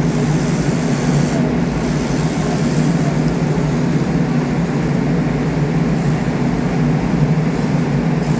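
Steady low mechanical drone of running machinery, unbroken and even in level.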